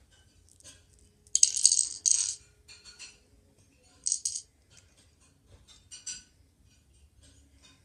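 Small plastic Lego pieces clicking and clattering as a Lego garbage truck's front-loader arms and a toy trash bin are handled. There is a loud rattling burst about a second and a half in, a shorter one around four seconds, and a few lighter clicks between and after.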